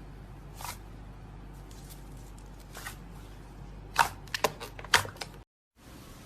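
Slime being pressed and squeezed by hand, giving sharp crackly pops: a single one, another a couple of seconds later, then a quick cluster of several about four seconds in.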